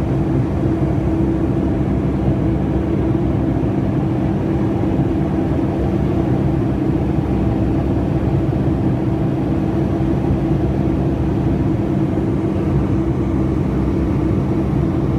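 Steady cabin drone of a Boeing 757-200 in flight, jet engine and airflow noise heard from inside the cabin, with a constant low hum.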